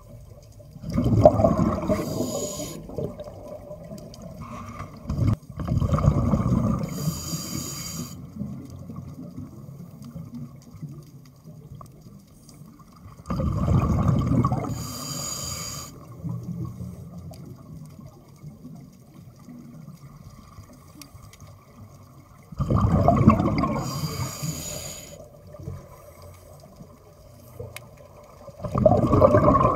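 Scuba breathing through a regulator, heard close up underwater. About five breaths come several seconds apart, each a rumbling gush of exhaled bubbles with a hiss from the regulator. There is a single sharp knock about five seconds in.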